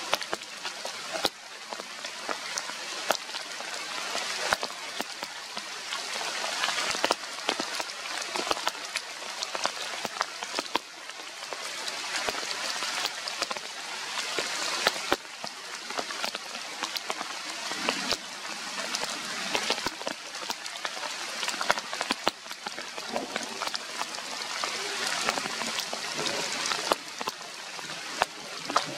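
Steady rain falling, with many separate drops tapping sharply close by.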